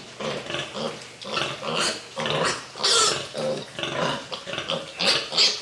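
Pigs grunting and squealing in a rapid run of short calls, with a few louder, higher squeals.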